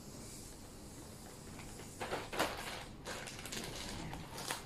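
Clear plastic wrapping rustling and crinkling in irregular bursts as it is pulled off a packaged item, starting about two seconds in.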